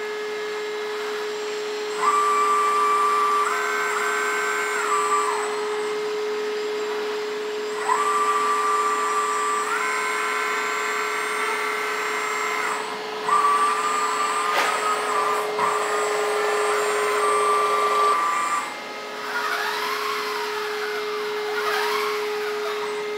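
Hydraulic pump of a 1/14-scale RC excavator running with a steady whine, stepping up into a louder, higher whine four times as valves are worked to move the boom, arm and grapple. Near the end, whines rise and fall in pitch.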